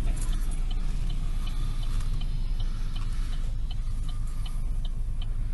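Steady low road rumble inside a moving car's cabin, with the indicator flasher clicking evenly, a few clicks a second.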